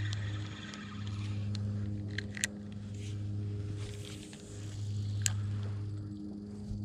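A spinning reel being wound and cast, with two sharp clicks about two and a half and five seconds in. Under it a low engine-like hum swells and fades throughout.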